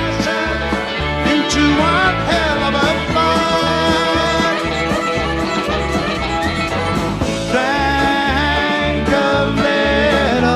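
Live rock band playing an instrumental passage: a violin carries gliding, sliding lines over electric guitar, bass, piano and drums with a steady beat.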